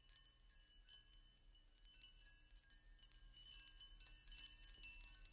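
Background music fading in: a tinkling, chime-like run of high bell tones that grows louder and busier.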